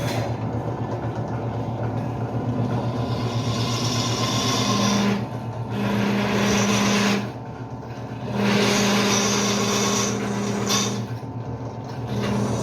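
Benchtop drill press motor running steadily while the bit cuts into a 2 mm steel plate. The cutting noise drops away briefly three times as the feed is eased off and pressed again.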